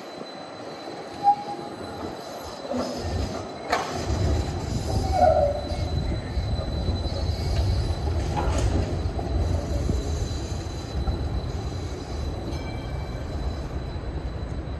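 A moving vehicle: a few sharp knocks and two brief squeals, then a steady low rumble sets in about four seconds in and carries on.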